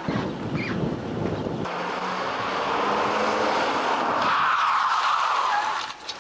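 A car drives up and passes close by. The engine and tyre noise build to a peak about four to five seconds in, then fall away sharply just before the end.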